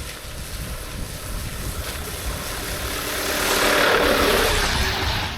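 A vehicle passing by: a rushing noise that swells to a peak about three and a half seconds in and then fades away.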